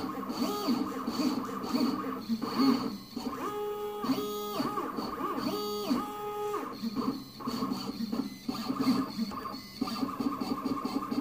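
Shapeoko 3 CNC machine's stepper motors whining as the gantry moves a marker around a drawing. The tones jump between pitches, ramping up and down in pitch at the start and end of each move.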